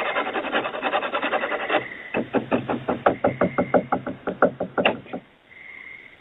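Rapid scratching on a door for about two seconds, then a fast run of knocks, about five a second, for roughly three seconds. It is heard through a home security camera's microphone.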